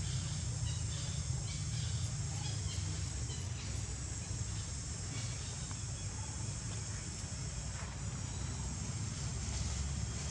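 Steady outdoor ambience: insects trilling in an even high drone over a low steady hum, with a few faint clicks.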